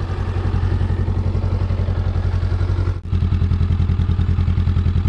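Honda CB500X's 471 cc parallel-twin engine idling steadily, with an even exhaust pulse.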